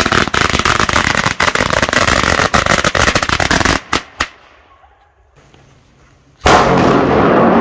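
A ground firecracker going off in a dense, rapid run of crackling bangs for about four seconds, ending with two separate pops. After a pause, a loud rush of noise lasting about a second sets in near the end.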